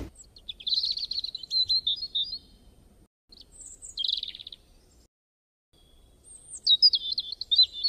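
Small songbirds chirping and twittering in quick high trills, in three bursts separated by short quiet gaps.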